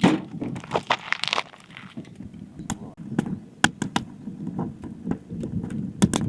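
A run of irregular sharp cracks and knocks, with a denser scraping crunch in the first second and a half.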